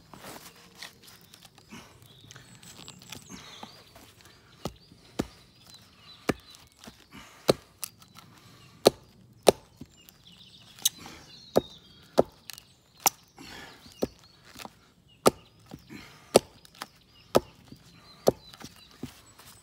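Repeated sharp wooden knocks, roughly one a second and harder from a few seconds in: a baton striking the spine of a 1075 carbon steel bushcraft knife, driving its tip into the end grain of a log round. It is a batoning test to destruction of a blade left too long in heat treatment and expected to be brittle, and the tip holds.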